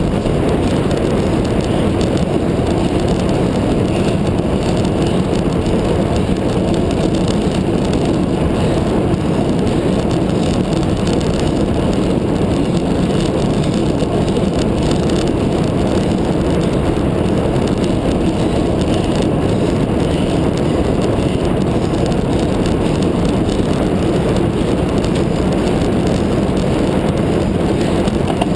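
Steady low rushing of wind and road noise on the microphone of a handlebar-mounted camera on a road bike riding at race speed.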